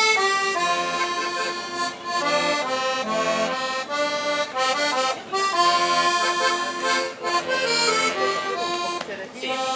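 Accordion playing a melody of held, reedy notes: the instrumental introduction before the vocal comes in.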